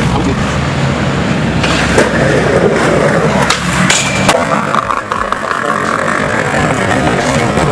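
Skateboard wheels rolling on concrete, sharp board clacks, then a short metallic grind of the trucks down a steel handrail about four seconds in, followed by rolling away.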